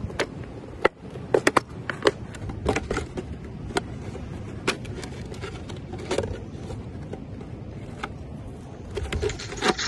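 An empty plastic bottle being handled: irregular sharp clicks and crackles of thin plastic as yarn is pushed through a hole in it with a pencil.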